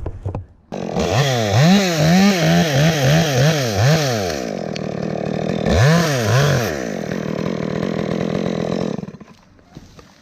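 Chainsaw comes in suddenly about a second in and is revved in a quick run of throttle blips, the pitch rising and falling several times. It settles to a steadier run with two more blips partway through, then cuts out near the end.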